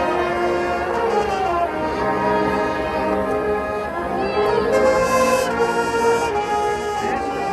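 Brass ensemble playing music, with full held chords that shift every second or so.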